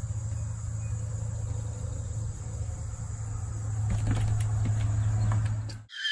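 Outdoor evening ambience: insects trilling steadily on one high note over a steady low hum. A few light taps sound about four seconds in, as a cat paws at a glass door.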